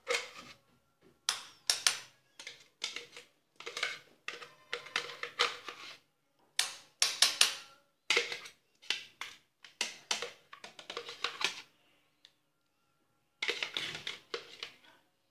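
Spoon scraping and knocking against the inside of a plastic blender jug as a thick avocado paste is scooped out into a ceramic bowl. It comes as runs of short scrapes and taps, with a pause of about a second and a half near the end before a last run.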